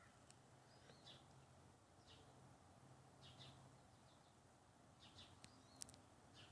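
Faint, scattered short bird chirps, a few of them falling in pitch, over a low steady hum, with a sharp click near the end.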